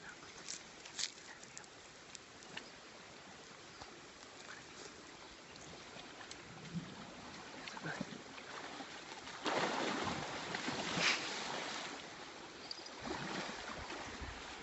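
Water splashing and sloshing as an elephant swims and submerges in a river, over a low outdoor hiss with a few small clicks early on. The splashing grows louder for a few seconds a little past the middle.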